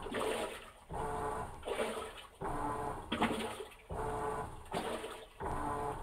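Insignia washing machine agitating its load in water: the motor hums and the water swishes in regular back-and-forth strokes, about one every three-quarters of a second.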